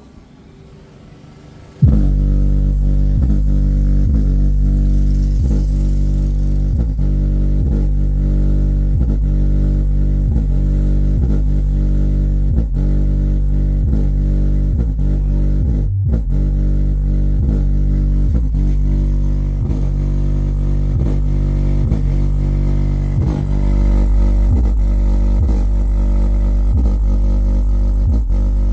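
Bass-heavy music played loud through an Ahuja N18-SW1800 1800 W neodymium-magnet woofer, tested bare without a cabinet. It is almost all deep, repeating bass notes with very little treble, and starts about two seconds in after a brief lull.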